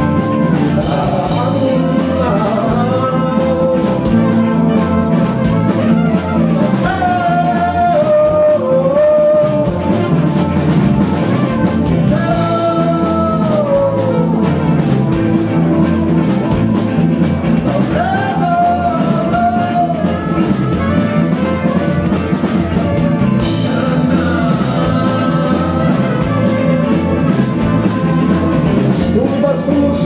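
Live band playing an instrumental passage: electric guitar and keyboards with a gliding, bending lead melody line over them.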